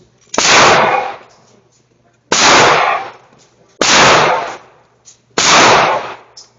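Four gunshots at a slow, steady pace, about one every one and a half to two seconds, each sharp crack followed by a fading tail.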